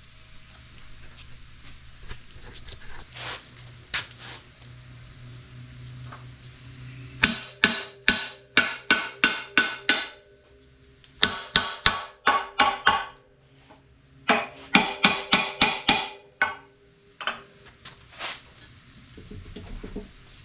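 Hammer blows on the cast-iron inspection plate of a Minneapolis Moline UNI 206 V-4 engine, striking to break it loose after its bolts are out. The blows come in three quick runs of about three a second, each strike ringing, with a few single blows after them.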